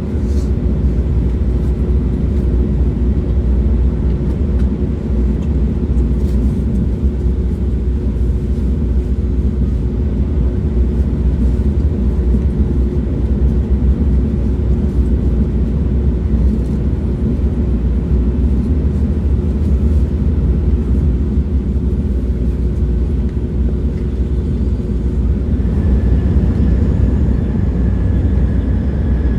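Train running along at steady speed: a continuous low rumble, with a faint steady hum that fades about three-quarters of the way through and a faint higher whine coming in near the end.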